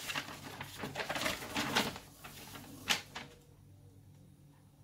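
A folded paper sheet rustling and crackling as it is opened out and handled, with one sharp crackle about three seconds in.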